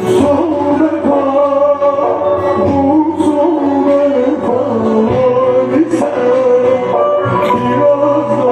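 Music: a man singing a melody over plucked string accompaniment.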